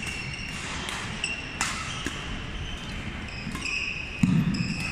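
Badminton rally in a sports hall: court shoes squeaking repeatedly on the wooden floor as players lunge and turn, with sharp racket strikes on the shuttlecock about one and a half and two seconds in. A louder low thud comes about four seconds in.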